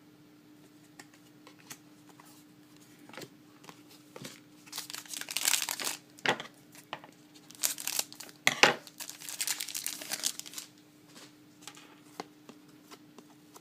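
A hockey card pack wrapper being torn open and crinkled, with the cards handled, in two bursts of rustling about four to six seconds in and again around eight to ten seconds, over a faint steady hum.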